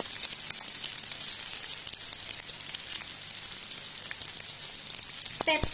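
Buffalo meat, shallots and coconut slices frying in coconut oil in a nonstick pan: a steady sizzle with occasional light ticks from the spoon stirring against the pan.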